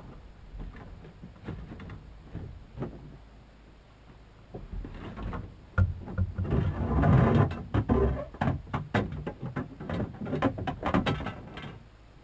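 Handling noise while a big fish is fought on a spinning rod in a small open boat: irregular clicks and knocks from the spinning reel being worked and from the angler moving against the hull, growing louder and denser for a couple of seconds in the middle.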